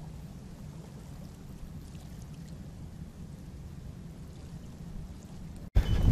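Low, steady rumble of wind on the microphone with faint outdoor hiss. Near the end it cuts off abruptly into a much louder rumble with short, high-pitched beeps.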